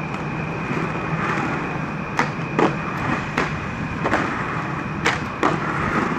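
Inline skate wheels rolling on pavement, a steady rolling noise broken by about six sharp clacks over the last four seconds. A steady hum with a thin high whine runs underneath.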